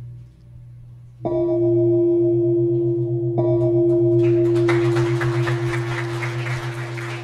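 Large bossed hanging gong struck twice with a padded mallet, about a second in and again two seconds later, ringing on with a steady tone over a deep, slowly beating hum; the strokes mark the official opening. Applause starts about halfway through and carries on over the ringing.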